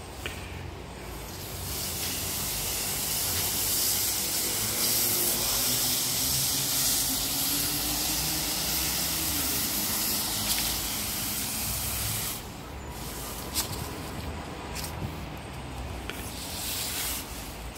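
Stiff-bristled push broom sweeping dry fallen lime leaves across stone paving slabs: a steady scratchy rustling hiss that drops to a quieter stretch with a few short scrapes about twelve seconds in.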